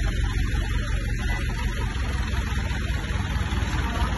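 Diesel engine running steadily: a low rumble with a constant hiss over it.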